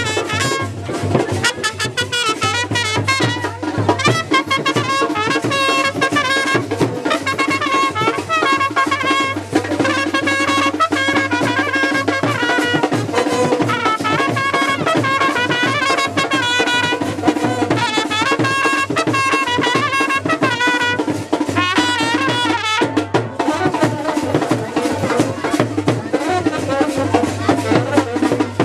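Indian wedding brass band playing: trumpets carry the tune over a steady beat of drums.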